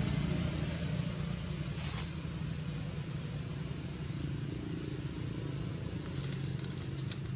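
An engine running steadily with a low hum. A few light crackles of dry leaves come near the end.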